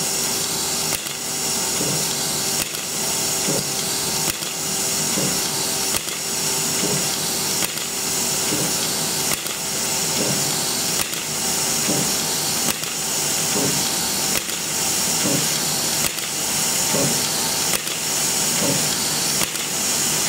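Automatic soldering robot running: a steady airy hiss, with a click and a short low knock repeating about every 1.7 seconds.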